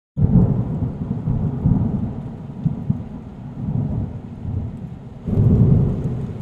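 Thunderstorm sound effect: rolling thunder over rain. It starts abruptly, eases off, then a second rumble swells about five seconds in.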